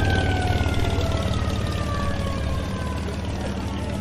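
A high, siren-like tone sliding slowly down in pitch over the low rumble of an idling engine, fading a little towards the end.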